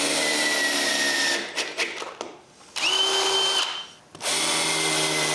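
Power drill driving screws: two runs of about two seconds each, its pitch sagging slightly under load, with a shorter burst between them.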